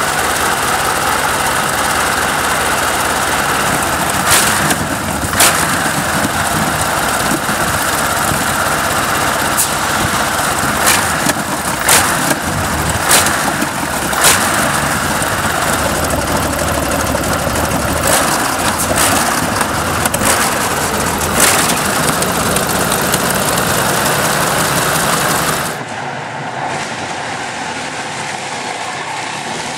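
BMW Brutus's 46.9-litre water-cooled BMW V12 aero engine running while stationary, a loud steady rumble broken by about ten sharp cracks. Near the end it gives way to a quieter, more distant engine sound from another vintage car.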